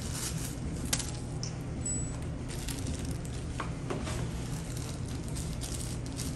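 Crinkling and rustling of a thin protective wrap being peeled off a plastic security camera by hand, with a sharp click about a second in, over a steady low hum.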